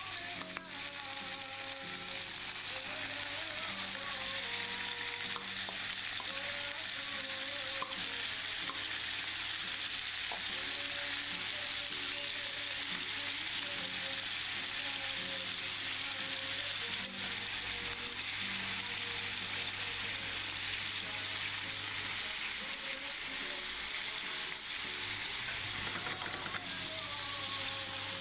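Pork and pineapple chunks sizzling steadily in hot oil in a frying pan.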